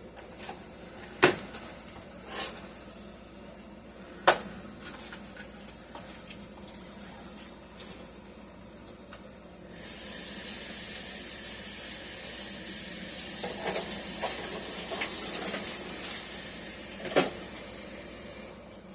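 A few sharp clatters of kitchen utensils or pots, then a kitchen tap running for about nine seconds with a steady hiss of water, starting and stopping abruptly.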